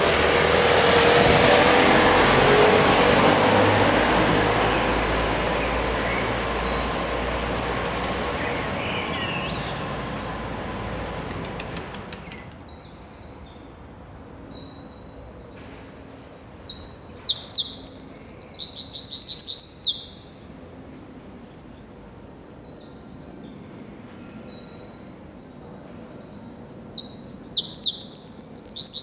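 Street traffic noise that is loud at first and fades away over about twelve seconds, then a songbird singing high, rapid trilling phrases in two bursts of about three to four seconds each, the second near the end.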